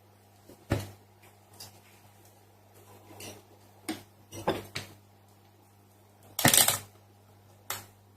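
Scattered clicks and knocks of objects being handled, about seven in all, the loudest a short rattling cluster about six and a half seconds in, over a steady low electrical hum.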